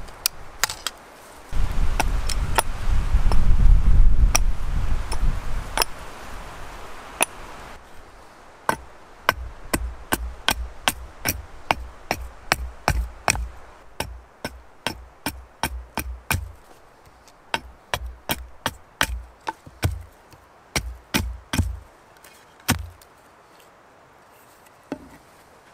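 Axe chopping into a wooden stick, quick regular strokes about one and a half a second for over ten seconds, stopping a few seconds before the end. In the first few seconds, a loud low rumble with a few scattered sharp knocks.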